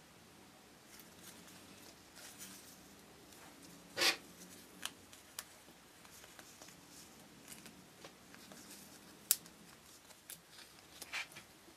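Stiff paper and adhesive backing sheets being handled and peeled: soft rustling and crinkling, with a louder crinkle about four seconds in and a sharp click a little after nine seconds.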